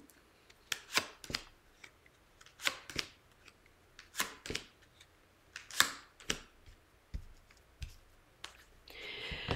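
Oracle cards being drawn from the deck and set down on the table: a string of sharp clicks and light slaps, often in pairs, about every second or so.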